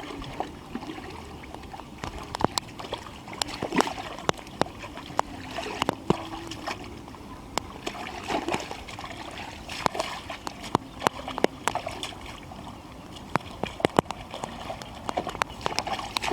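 Shallow pond water splashing and sloshing as hands work through it, with many short sharp splashes and drips at irregular intervals.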